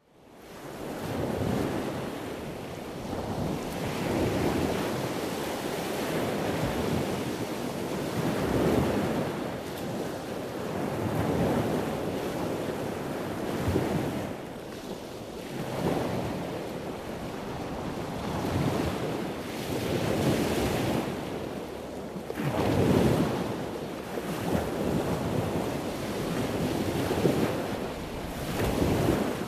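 Ocean surf: waves washing in and drawing back, the rush rising and falling every two to three seconds. It fades in from silence at the start.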